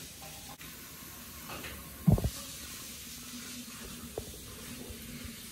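Steady background hiss with one short, loud, low thump about two seconds in.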